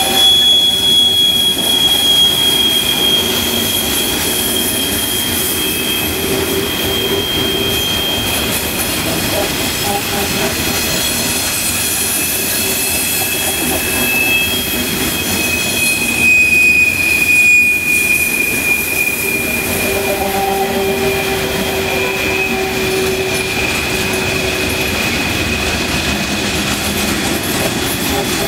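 Coal train hopper cars rolling past on steel rails, their wheels squealing in steady high-pitched tones over the continuous rumble of the wheels on the track. One squeal fades out about a third of the way through while another carries on.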